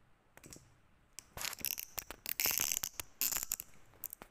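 Clicking and rustling handling noise, a dense run of small clicks starting about a second in and lasting a couple of seconds, as the spiral-bound notepad is moved about on the table.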